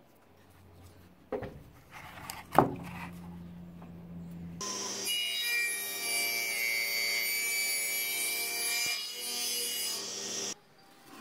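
Table saw with its blade at full height cutting through the side of a totara log for about six seconds, a loud steady whine with ringing tones that stops abruptly near the end. Before the cut, the saw hums with the blade spinning free and the log knocks twice against the jig as it is set in place.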